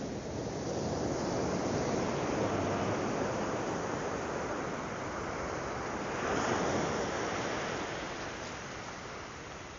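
Surf on a sandy beach: waves breaking and washing in, one swelling to a peak about six seconds in and then receding.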